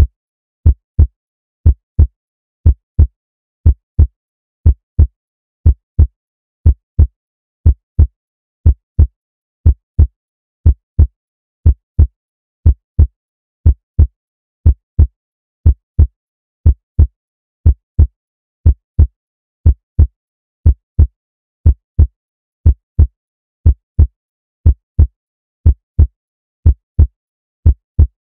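Recorded heartbeat sound effect: a steady lub-dub of two dull thumps repeating about once a second.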